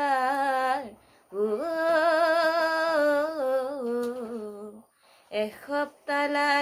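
A woman singing a verse of an Assamese nagara naam (devotional song) unaccompanied, in long held notes with a wavering ornament. There is a short breath-pause about a second in and a longer one near five seconds.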